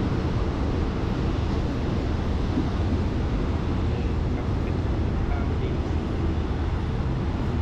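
Passenger train running along the track, a steady low rumble heard from aboard the moving train.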